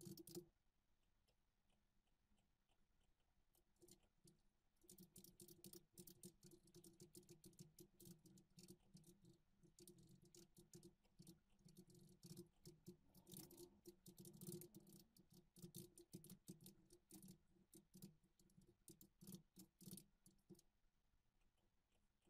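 Faint computer keyboard typing: irregular runs of quick key clicks, starting about four seconds in after a brief quiet spell.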